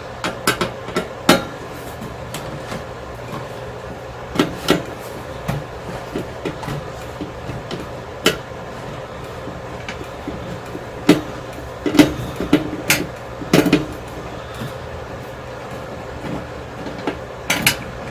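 Irregular metallic clicks and knocks of hand tools working on a microwave's sheet-metal shield and housing to take it off. They come in scattered single strikes, a cluster of louder ones about two thirds of the way through and more near the end, over a faint steady hum.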